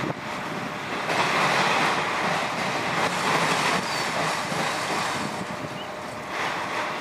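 Freight train of autorack cars rolling past: a steady rush of wheels on rail, louder for a couple of seconds about a second in, then easing off.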